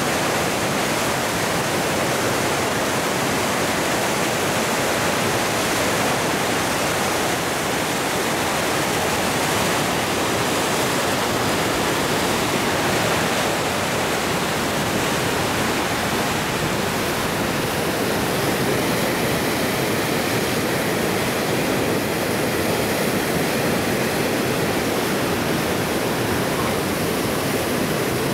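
Whitewater of Lava Falls rapid on the Colorado River, rushing steadily: a dense, even wash of churning water with no letup.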